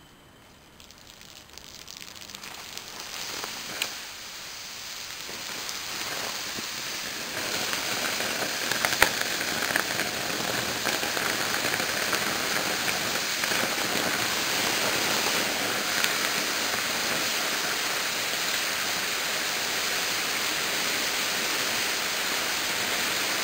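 Water flashing to steam on molten aluminum in a crucible: a sizzle that builds over the first several seconds into a steady loud hiss, with crackles and sharp pops about 4 and 9 seconds in.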